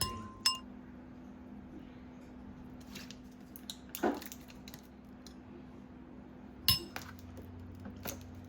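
Dishes and utensils clinking in a kitchen: a handful of separate sharp clinks and knocks, the first ringing briefly like glass or ceramic, over a faint steady hum.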